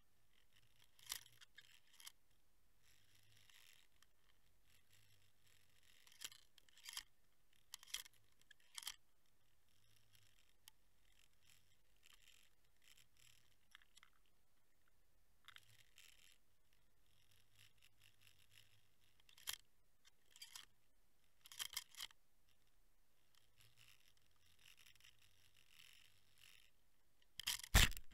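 Faint, scattered scratching and clicking from an underwater camera housing riding on a fishing line while a lure is worked below it, with a louder cluster of scrapes near the end.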